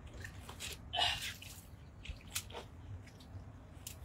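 Water splashing and dripping as a cast net is hauled out of the water, in scattered short splashes with one louder burst about a second in.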